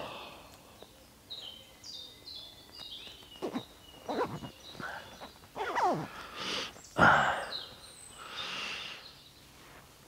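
A songbird sings a short run of high notes stepping down in pitch about a second in. Then come several short rasping and rustling strokes from clothing handled close to the microphone.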